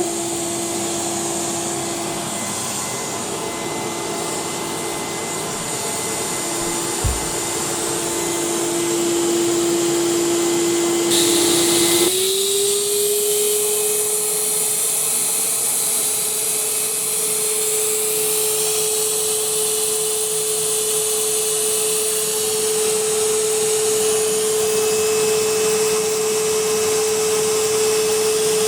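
Numatic Henry cylinder vacuum cleaner running with a steady motor hum. Its pitch steps up about twelve seconds in and holds there. A single short thump comes about seven seconds in.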